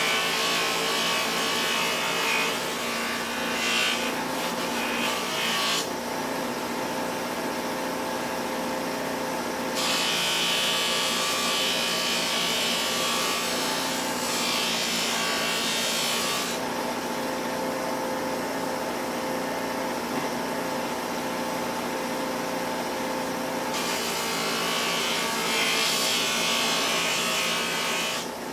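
Bench grinder fitted with a buffing wheel running steadily, with the hissing rub of a steel knife blade pressed against the spinning wheel to buff off rust. The rubbing is heaviest in three long spells of about six seconds each, with lighter contact between.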